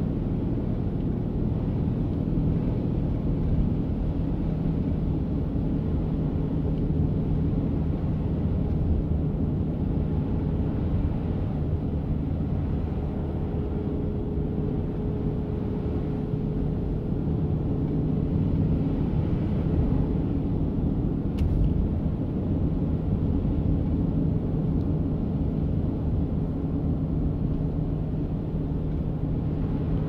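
Steady cabin noise of a car driving on a snow-covered highway: tyre and road rumble with a steady low engine hum. One faint click comes about two-thirds of the way through.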